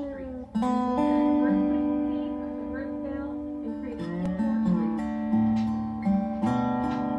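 Background music: acoustic guitar picking and strumming chords, with notes that ring and fade and a change of chord every second or so.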